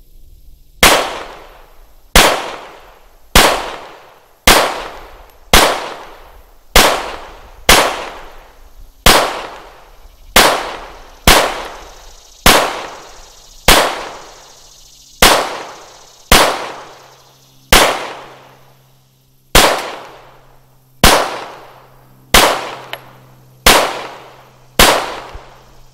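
Customized Glock 17 Gen 3 9mm pistol fired in a slow, steady string: about twenty shots, roughly one a second, each a sharp report that fades quickly.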